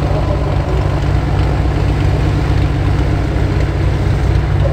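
Van's Aircraft RV-7 light aircraft's piston engine and propeller running steadily at low taxi power.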